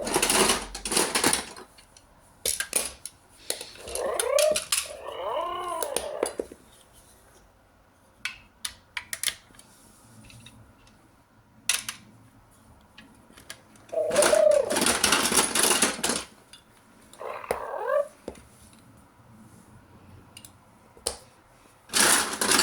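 A cat meowing several times, each call rising and falling in pitch, among sharp clicks and louder rattling bursts.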